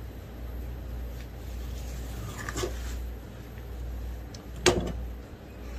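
Handling noise at a fish cutting board while a flounder is skinned with a knife: a soft scrape about halfway through and one sharp knock near the end, over a steady low hum.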